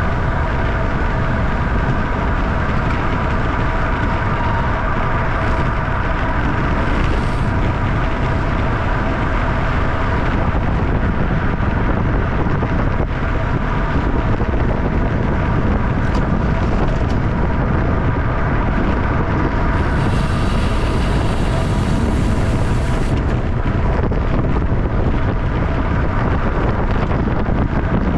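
Wind noise buffeting the microphone of a camera on a road bike ridden at racing speed, around 25 mph. Under it is a steady whine of rolling bike noise, and a brief, higher hiss lasts about three seconds near the end.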